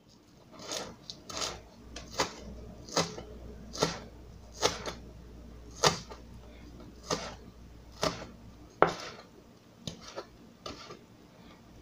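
A kitchen knife chopping scallions and thyme on a plastic cutting board: about a dozen even, sharp taps of the blade on the board, roughly one a second, fainter near the end.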